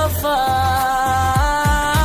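Background song music: a long held melodic note over a beat, with deep bass hits that drop in pitch near the end.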